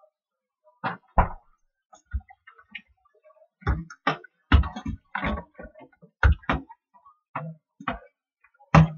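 Irregular knocks and clatters of kitchenware being handled, about a dozen short sharp hits scattered over several seconds.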